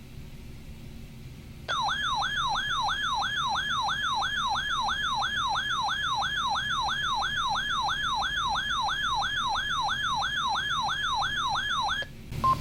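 Weather alert radio receiver's alarm sounding a warbling siren: the pitch sweeps rapidly up and down, about two and a half times a second. It comes on loud out of faint hiss about two seconds in and cuts off about twelve seconds in. The alarm signals that a new severe thunderstorm warning has been received.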